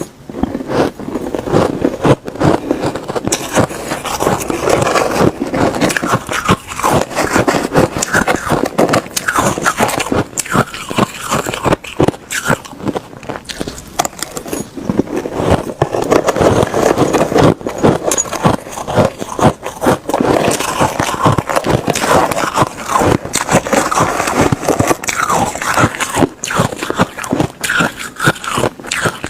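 Ice being crunched and chewed in the mouth, close up: a dense, continuous run of crackling crunches.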